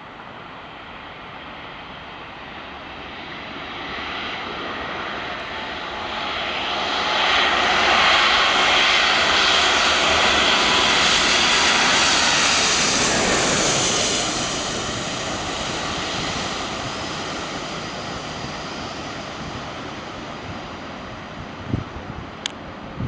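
Boeing 777 jet engines as the airliner passes: the roar grows louder, is loudest for several seconds in the middle, then fades with a falling pitch as it goes by. A few faint knocks near the end.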